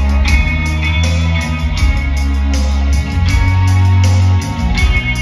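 Live rock band playing loudly: guitars over heavy bass, with a steady beat.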